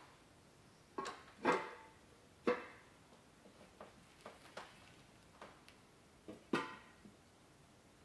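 Metal wheel parts, rim halves and a wheel center, being set down and fitted together: several sharp clanks, each ringing briefly, with lighter taps and ticks between.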